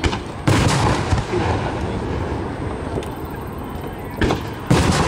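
Aerial firework shells booming: a loud boom about half a second in, another near the end, and smaller bangs between, each trailing off in a rolling echo.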